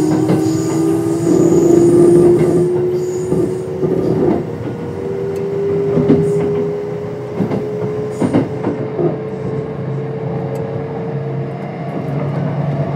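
Kintetsu 5200 series electric train running, its Mitsubishi GTO-VVVF traction drive and motors whining with a pitch that climbs slowly as the train gains speed, with a few clicks of wheels over rail joints in the middle.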